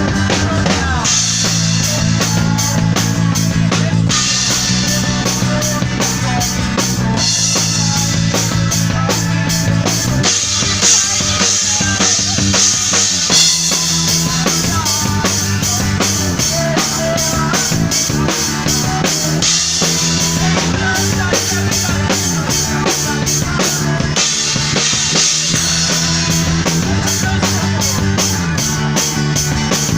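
A band playing, led by a drum kit with kick drum and snare hits under held chords that change every few seconds.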